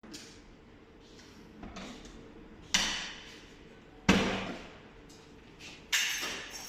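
Hammer blows on a door lock, three hard strikes about a second and a half apart, each ringing briefly, with a few lighter taps between, as the lock is forced for removal.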